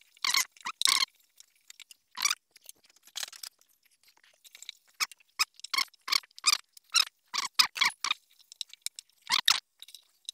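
Plastic slotted spatula scraping and tossing chopped onions, celery and sliced bell peppers around a nonstick wok: a string of short scrapes, sparse at first, then about two a second through the middle.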